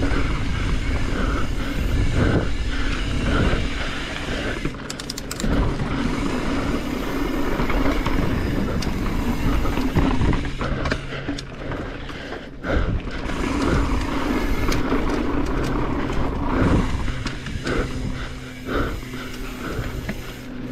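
Mountain bike ridden over a rough technical dirt trail: continuous rumbling noise of the tyres and rattling of the bike, with frequent knocks and clicks over the bumps.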